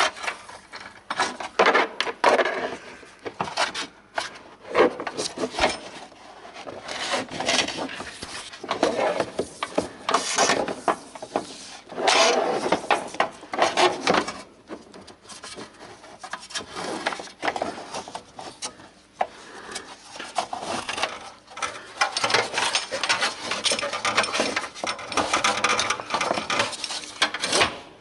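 Rough scraping and rubbing, in uneven strokes with short pauses, from hand work on metal parts.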